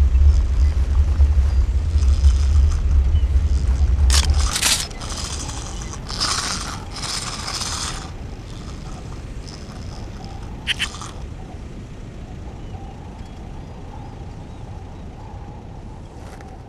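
Cartoon excavator machinery sound effects: a deep engine rumble that cuts off about four and a half seconds in, then several short bursts of hissing noise and a quick double click, leaving a faint steady tone.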